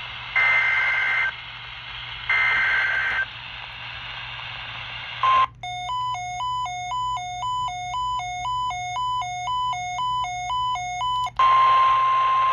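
NOAA Weather Radio alert tones. First come two of the buzzy SAME digital data bursts of an EAS header, each about a second long. Then, after a brief steady beep, an electronic alarm alternates between two pitches about twice a second for some five seconds, and near the end the weather radio's loud, steady warning alarm tone begins.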